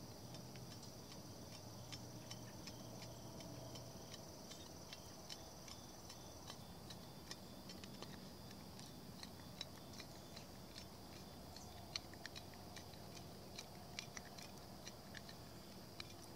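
Faint, irregular small clicks and ticks from fingers handling a small object, growing more frequent in the second half, over a faint steady background.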